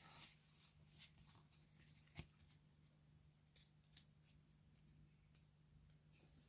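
Near silence: faint, scattered rustles and clicks of a Pokémon booster pack and cards being handled, with one sharper click about two seconds in, over a steady low hum.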